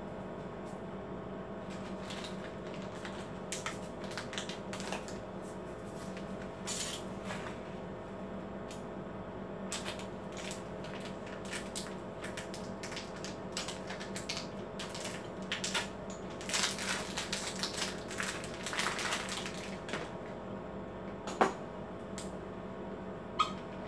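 Epson L4160 ink-tank printer's mechanism working: irregular clicks and short rattles, busiest a few seconds past the middle, over a steady hum, ending with two sharp clicks.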